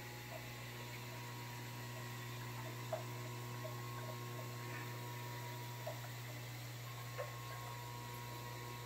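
Steady low electrical hum from the shrimp-tank equipment, with a few faint ticks scattered through it.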